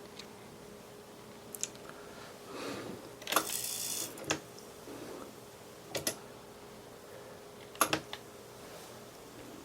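Sharp mechanical clicks, some in quick pairs, and one short rasping whirr a few seconds in, over a faint steady hum: the transport keys and mechanism of a Studer A710 cassette deck being worked.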